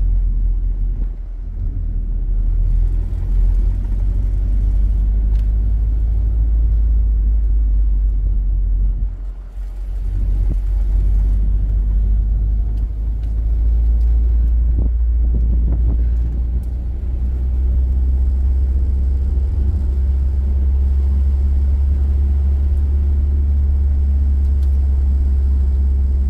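Car driving along a road, a steady low rumble of engine and road noise that drops briefly about nine seconds in.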